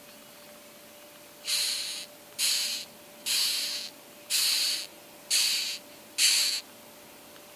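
Coconut rhinoceros beetle stridulating: six hissing rasps, each about half a second long, coming roughly once a second.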